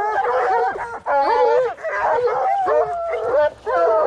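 A pack of hunting hounds baying and howling together, many voices overlapping, in full cry on a wild boar. The calling breaks off briefly about a second in and again near the end.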